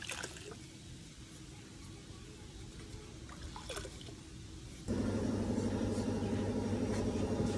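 Faint wet sloshing and scrubbing as cast doll figures are washed by hand in a metal basin of water, with a couple of light knocks. About five seconds in, a steady, louder machine hum cuts in.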